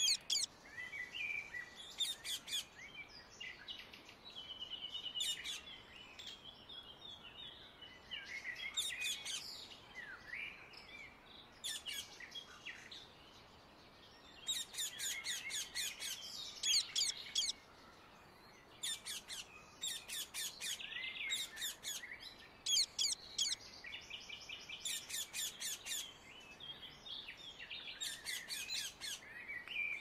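Rose-ringed (Indian ringneck) parakeets calling: runs of rapid, sharp high-pitched calls come again and again, with softer chattering between them.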